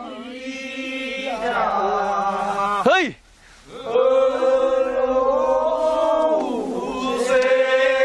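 Men singing a Korean rice-paddy weeding work song in long, drawn-out held notes, with a short break about three seconds in.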